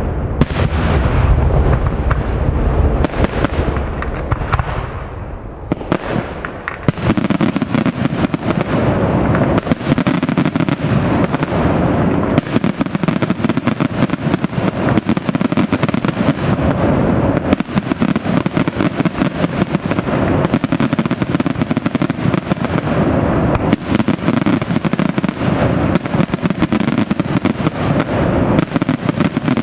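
Daytime fireworks display: heavy booming shell bursts for the first few seconds, then from about seven seconds in a dense, continuous rattle of rapid crackling reports.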